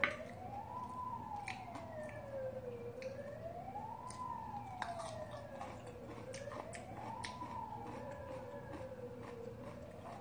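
A siren wailing in a slow rise and fall, about one cycle every three seconds. Light clicks of chopsticks against dishes, the sharpest one right at the start.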